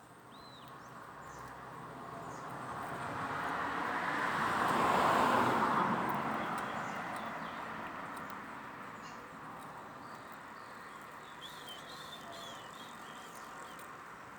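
A vehicle passing by, swelling to its loudest about five seconds in and then slowly fading. Faint small-bird chirps sound briefly near the start and again later.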